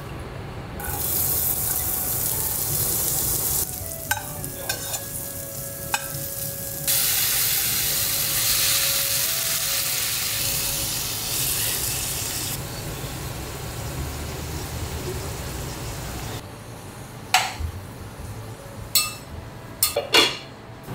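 Diced tomatoes sizzling in hot oil in a stainless steel frying pan, in two loud spells that die down. Near the end, a few sharp clinks as a glass lid is set on the pan.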